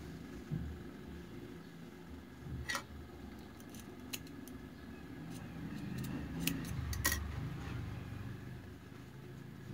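Spring-loaded thread snips cutting away excess seam allowance from sewn fabric: a scattering of short, sharp snips from about three seconds in, the loudest about seven seconds in, over a low steady hum.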